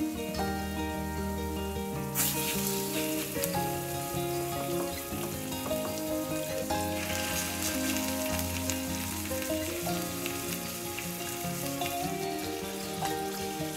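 Raw chicken thighs sizzling as they go into hot oil with fried onions in a stainless steel pan. The sizzle comes in about two seconds in and grows stronger about halfway through as more pieces go in, over instrumental background music.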